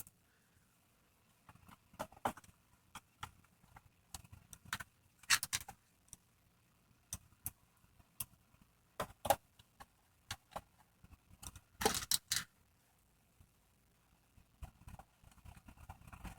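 Scattered clicks and small clinks of screws and a screwdriver being handled while the motherboard screws go back into a Roomba's plastic chassis, with a few brief bursts of clatter.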